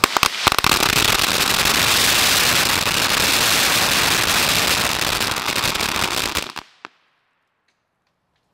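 An M-4000 roll of 4,000 firecrackers going off all at once in its container: a few separate bangs, then a dense, continuous crackle of rapid explosions for about six seconds that stops abruptly, with one last pop just after.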